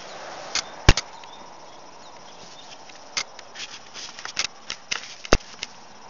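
Irregular sharp clicks and knocks over a faint hiss, with two louder thumps, about a second in and near the end.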